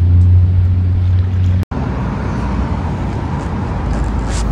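A steady low hum that breaks off abruptly about a second and a half in, followed by the even rushing noise of passing road traffic.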